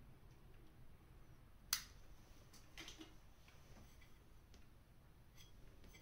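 Mostly near silence, broken by handling of a fire-alarm heat tester: one sharp click about a second and a half in, then a few softer clicks and taps.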